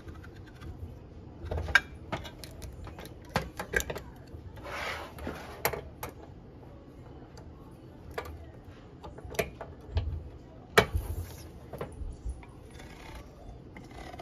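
Handheld manual can opener being cranked around the rim of a metal can: irregular metallic clicks and clinks, with a few short scraping rasps.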